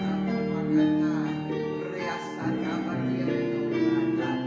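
Instrumental background music: sustained chords, guitar-like, shifting to a new chord every second or two.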